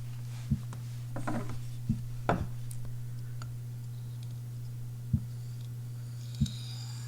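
Knife sharpening at close range: a few light, sharp clicks and taps of the steel blade against the sharpening stone or its holder, spaced irregularly, over a steady low electrical hum.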